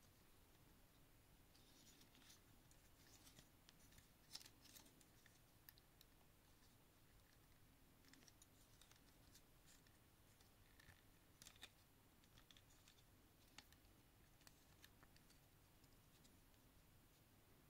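Faint clicking and scraping of the plastic joints and parts of a Transformers Legacy Skullgrin figure as it is transformed by hand. Scattered sharper clicks come as parts snap into place, the loudest about four seconds in.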